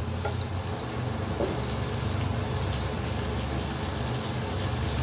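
Beef, onion and ginger frying with a steady sizzle in a nonstick wok while a metal spoon stirs them, over a steady low hum.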